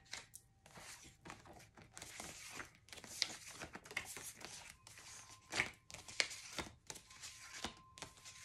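Tarot cards being handled: quiet, irregular slides, rustles and taps of card stock, with a few sharper snaps about 3, 5.5 and 6 seconds in.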